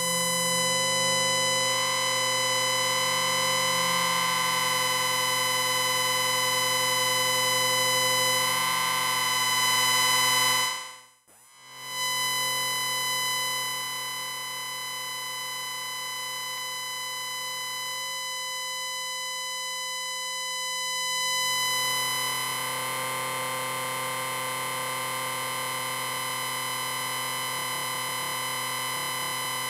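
Amplifier beep: a steady electronic whine made of several high-pitched tones held together at once. It cuts out for about half a second around eleven seconds in, then resumes a little quieter.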